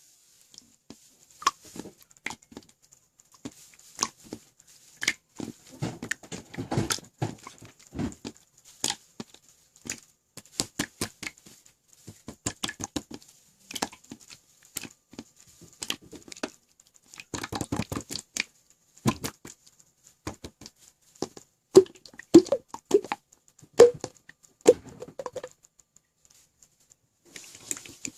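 Slime being squeezed and pressed by hand, making irregular sticky clicks and popping air bubbles, sometimes in quick clusters, with a few louder pops in the last third.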